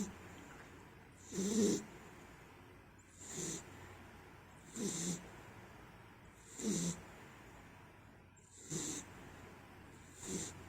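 A sleeping pet snoring in a steady rhythm: about seven short, rasping snores, one every second and a half to two seconds.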